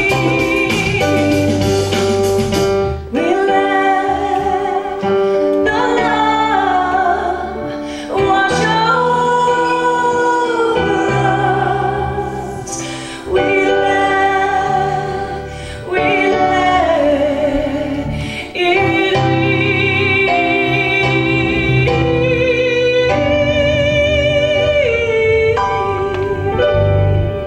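A woman singing a spiritual pop song, with vibrato on long held notes, over chords on a Yamaha electronic keyboard.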